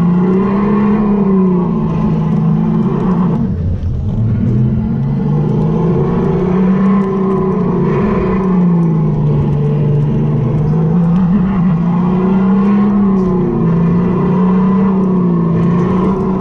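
RiMO electric go-kart motor whining while driving laps, its pitch rising and falling with speed through the turns, with a brief easing off about four seconds in.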